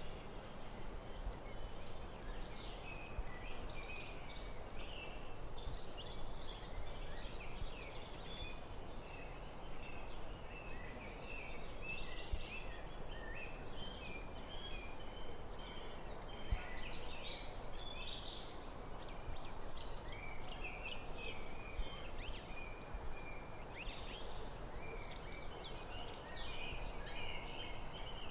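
Several forest birds singing and chirping in quick, overlapping phrases, over a steady low background noise.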